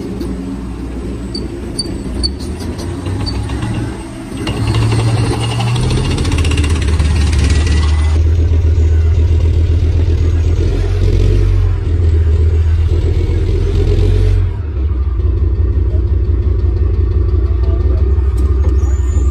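Heavy military vehicle's engine running loud and low, building up about four seconds in and holding a strong drone, then easing back to a lower, pulsing rumble about fourteen seconds in.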